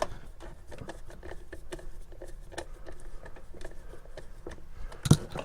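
Small scattered clicks and rustles of wiring and plastic fittings being handled, with one louder knock about five seconds in.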